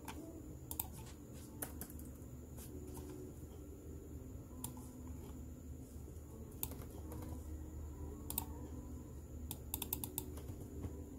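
Typing on a computer keyboard: sparse, irregular keystrokes, with a quick run of several near the end.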